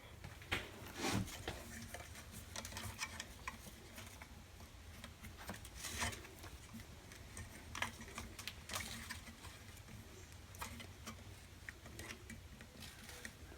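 Faint scattered clicks, taps and scrapes of a speaker's bent metal frame being clamped in a bench vise and pulled on by hand to straighten a crease, over a low steady hum.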